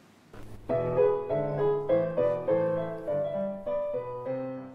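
A short instrumental tune on a piano-like keyboard: a quick run of notes and chords that starts about a third of a second in.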